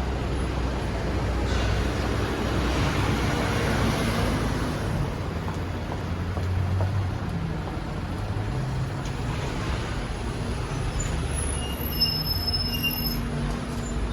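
Steady rumble of heavy vehicles and traffic, swelling twice, with a few short high squeals near the end.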